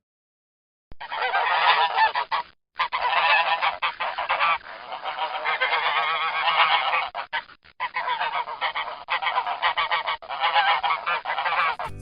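Geese honking, many calls overlapping, starting about a second in after silence, with a brief break a little later.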